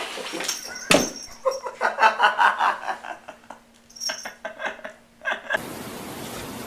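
A knock about a second in, then a person laughing in quick rhythmic pulses. Near the end a steady hiss begins.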